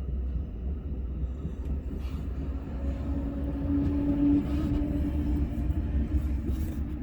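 NJ Transit commuter train at the station, a steady low rumble with a humming tone that comes in about two and a half seconds in and fades away near the end.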